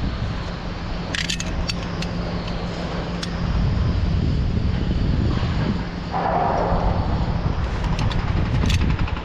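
Wind buffeting a GoPro's microphone high on a tower crane jib, a steady low rumble, with a few short metallic clinks of hardware about a second in and again near the end.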